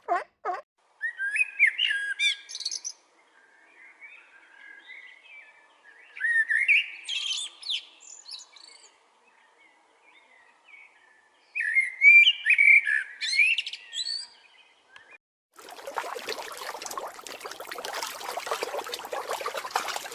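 A bird singing: three bursts of high, quickly gliding chirps a few seconds apart. A steady rushing noise follows near the end.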